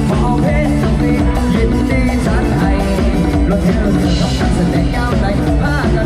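Loud amplified lam sing band music with a steady beat.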